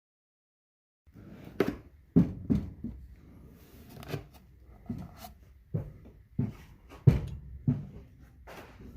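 Irregular knocks and clunks, roughly one every half second to a second, starting about a second in.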